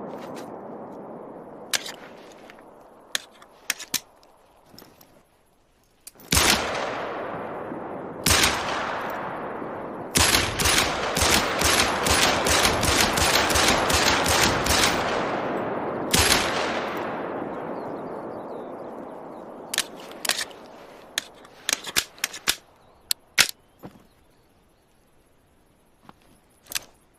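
10mm pistol gunshots with long echoing tails: single shots, then a fast string of shots at about three a second, then a last single shot. Small sharp clicks come before and after the firing.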